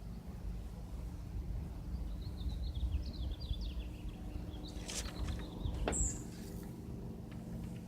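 Small birds chirping over the steady drone of a Cessna light aircraft's propeller engine passing overhead, with two sharp clicks about five and six seconds in.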